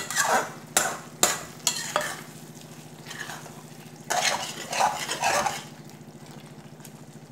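Wooden spatula stirring thick ridged gourd curry in a steel kadai: a few sharp knocks and scrapes against the pan in the first two seconds, then a longer spell of scraping stirs from about four to five and a half seconds in. A steady low hum runs underneath.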